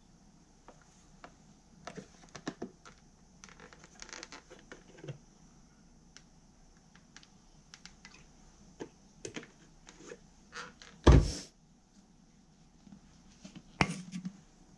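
Plastic seasoning bottles and their caps handled on a kitchen counter: scattered light clicks and knocks, one heavy thump about eleven seconds in, and another sharp knock near the end.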